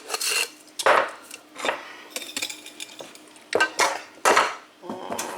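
A metal spoon clinking and scraping against a cup and dishes while sugar is spooned into tea: about five separate knocks, some ringing briefly.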